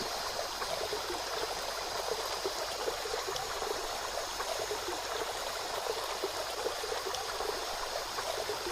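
Steady rush of running water from a stream by a waterfall, with many small splashes and gurgles throughout.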